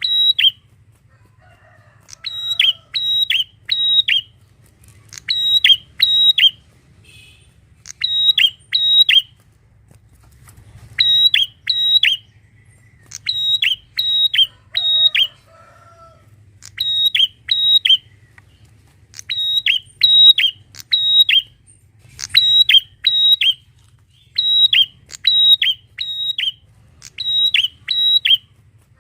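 Prinia (prenjak) singing: loud, sharp chirps, each dropping quickly in pitch, given in quick bursts of two to four notes with short pauses between the bursts.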